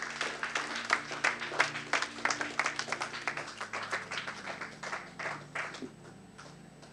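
Church congregation applauding, the clapping thinning out and fading away near the end.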